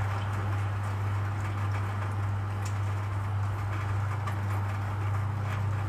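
A steady low hum with an even background hiss, with no change in level.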